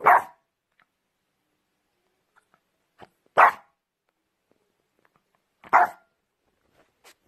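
A dog barking three times, single barks a couple of seconds apart.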